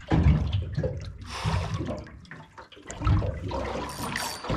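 Water sloshing and splashing against a small boat's hull in uneven surges.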